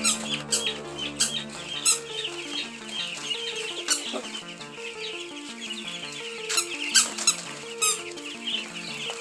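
Chicken clucking in short, sharp calls over a background music track with a simple stepping melody.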